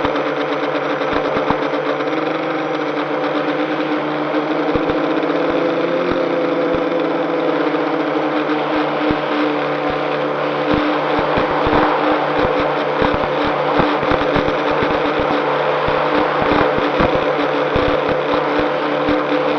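A multirotor drone's motors and propellers running steadily at low throttle during a descent in gusty wind, a steady droning whine. Frequent short low thumps, more of them in the second half, come from the wind buffeting.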